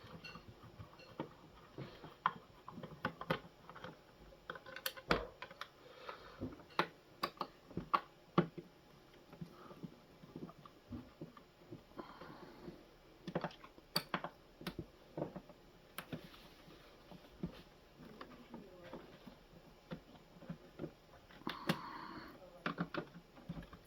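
Irregular small clicks and knocks of a screwdriver working screws out of a coffee machine's plastic base, with the tool and screws tapping against the housing.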